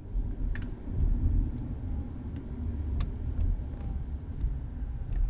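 Car cabin noise while driving: a steady low engine and road rumble, with a few faint clicks.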